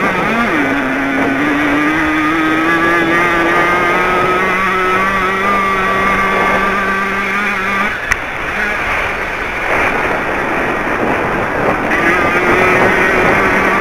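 Small 50 cc Jawa two-stroke racing engine held at high revs, its pitch climbing about half a second in and staying high, with wind rushing past. About eight seconds in the throttle is shut and the steady engine note drops away with a short click, then the engine picks up again near the end.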